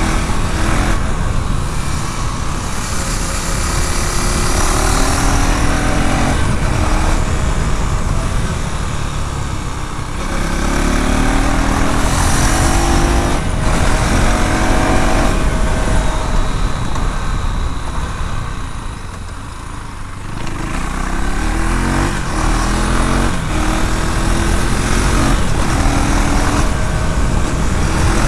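KTM Duke 390's single-cylinder engine and exhaust under way, its note climbing in pitch in repeated steps as it accelerates. It eases off about ten seconds in and again just before twenty seconds, then pulls up again.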